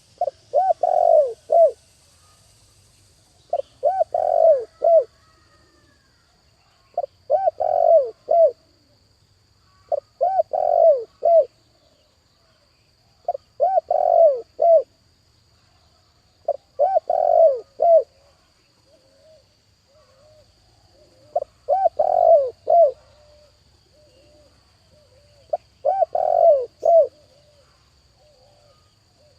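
Spotted dove (chim cu gáy) decoy bird cooing its call, a repeated phrase of three or four coos given about every three seconds, nine times over. Between some of the later phrases come a few softer single coos.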